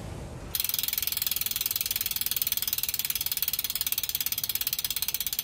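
Rapid, even mechanical clicking like a ratchet, more than ten clicks a second, with a hiss behind it. It starts about half a second in.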